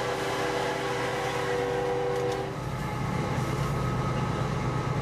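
Cab noise of a moving diesel freight locomotive: steady low engine rumble and rolling noise. A steady two-note tone sounds over it and stops about two and a half seconds in.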